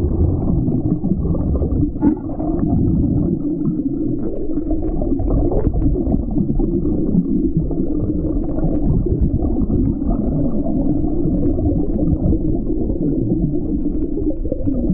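Muffled underwater rush and rumble of water around a submerged camera, with a steady low drone running through it and all the high sounds cut away by the water.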